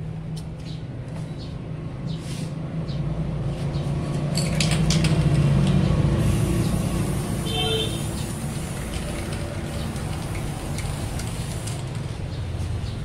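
Aerosol spray-paint can hissing for several seconds as paint goes onto a car bumper, over a low rumble that swells and fades.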